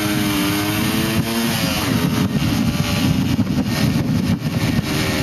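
Motorcycle engine running at a steady pace while riding. Its note is clear for about the first second and a half, then a rough rumble, likely wind on the microphone, mostly covers it.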